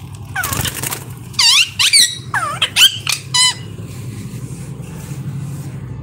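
Green parakeets screeching: a quick flutter of wings about half a second in, then about five loud, harsh calls, each dipping and rising in pitch, over the next two seconds. After that only a steady low hum remains.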